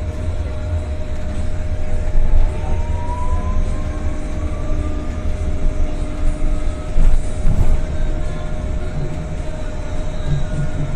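CRRC C10 battery-electric bus running, with a heavy low rumble and a steady electric whine. A second motor whine rises in pitch over the first few seconds as the bus accelerates. There are a few louder knocks and rattles along the way.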